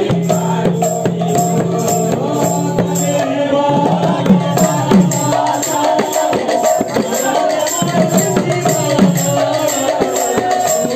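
Kirtan music: two-headed barrel drums (mridanga/khol) played by hand, over a steady beat of hand cymbals at about two strikes a second, with voices singing.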